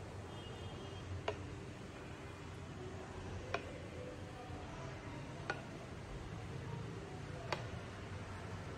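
Four sharp ticks, about two seconds apart, over a low steady background hum.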